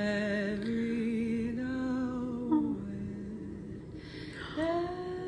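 A voice singing a few slow, held notes that step up and down in pitch with a slight waver. About four and a half seconds in, soft music with a long sustained note comes in.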